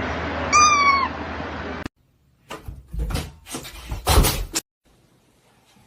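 A cat meows once, a short call falling in pitch. After a brief silence come three or four loud bangs or thumps.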